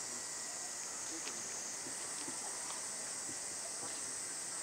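Steady high-pitched drone of a summer cicada chorus, a continuous hiss with no break, with a few faint ticks under it.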